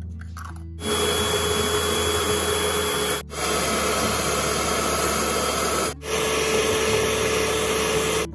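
Electric hand mixer running steadily, its twin beaters whipping egg whites into foam. It starts about a second in and cuts out briefly twice.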